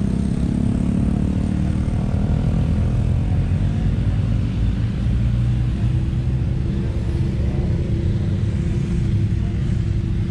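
Steady low rumble of motorcycle engines running around the show grounds, with a steady hum coming in about halfway through.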